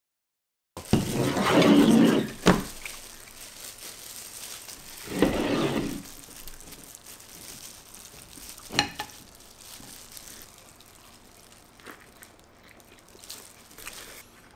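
Crackling and rustling as crispy battered hot dogs are torn apart by hands in plastic gloves. It comes in two louder bouts, about a second in and about five seconds in, with a few sharp clicks, then goes quieter.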